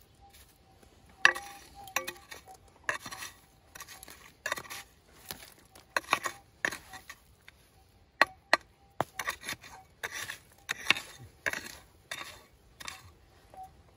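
A prospector's pick striking and scraping into stony gravel, roughly one or two blows a second, each a sharp knock of steel on rock followed by a scrape of loosened stones. The digging is to recover a metal detector target.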